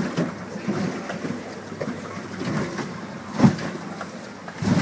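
Jet boat running through rough river water, heard from inside the cabin: a steady drone of engine and rushing water, with one loud thump about three and a half seconds in.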